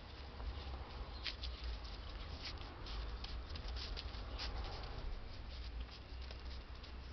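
A Yorkshire terrier puppy's paws pattering and scratching on a puppy training pad as it scampers about playing, a run of quick, irregular light ticks, thickest in the middle, over a low steady rumble.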